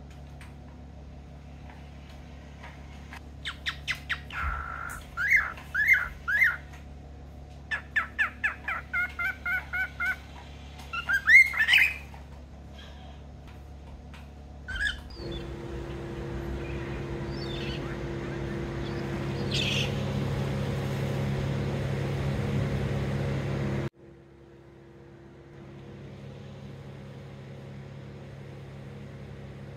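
Cockatiel chirping and whistling, a string of short calls with some rising and falling, over several seconds. After it comes a steady hum with a rushing noise that swells and then cuts off abruptly.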